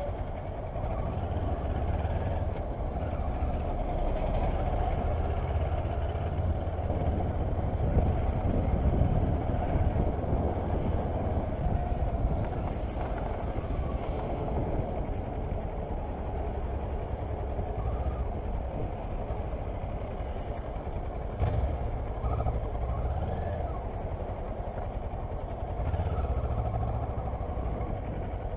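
Kawasaki Versys motorcycle engine running at low speed with a steady low rumble, among the noise of slow surrounding traffic.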